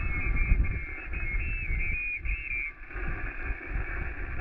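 Shortwave receiver audio from an ICOM amateur radio transceiver's speaker while listening for the other station: whistling tones that step up and down in pitch for the first two and a half seconds or so, then band-limited static hiss. Wind rumbles on the microphone underneath.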